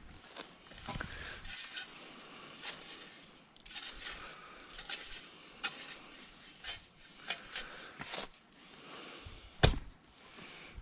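Footsteps and scattered light knocks and crunches as a shovel is fetched and handled in a garden bed, with one sharp knock near the end.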